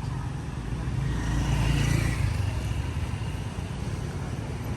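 Street traffic: a steady low engine rumble, with one vehicle passing close that grows louder to a peak about two seconds in and then fades.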